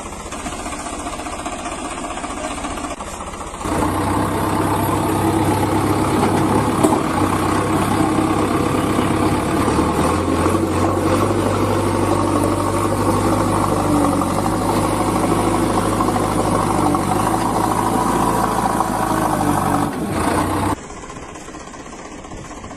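Vehicle engine running steadily, jumping louder about four seconds in and dropping back abruptly near the end.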